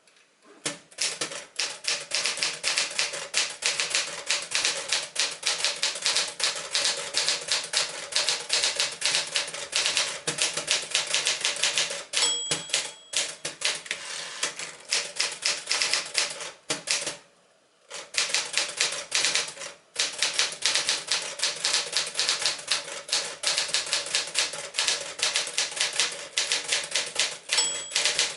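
1964 Smith-Corona Sterling 5AX manual portable typewriter being typed on briskly: a fast, uneven run of key and typebar clacks with a few short breaks. Twice, near the middle and near the end, a short ring of the margin bell sounds as a line nears its end.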